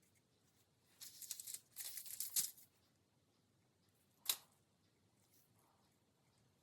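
Thin gold foil sheet crinkling and tearing for about a second and a half, followed a little later by a single sharp click.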